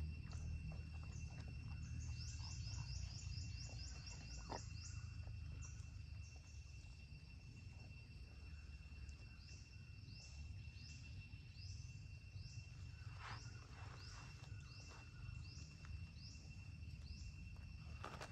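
Faint forest sounds: a steady high insect drone, and a bird repeating a short falling call, first in a quick run about two seconds in, then singly about every half second. A low rumble and a few light knocks lie underneath.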